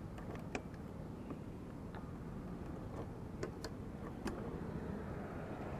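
A scattering of sharp clicks and small metal rattles as a key turns in a TVS Ntorq scooter's fuel-lid lock and the fuel cap is opened, over a steady low background hum.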